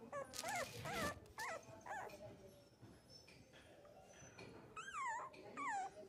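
Young puppy whimpering and crying: a string of short, high-pitched whines in the first two seconds, a quieter stretch, then longer wavering cries near the end.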